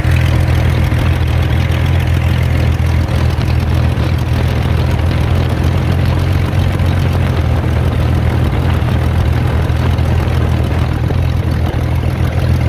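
Mercedes M112 V6 engine idling steadily during a vacuum leak test, on an engine with a large vacuum leak at the intake manifold gasket.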